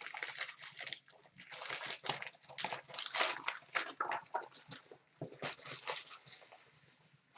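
Crinkling and rustling of a foil mystery-box bag being handled as a white cardboard card box is pulled out of it, in irregular crackles with a short lull about five seconds in.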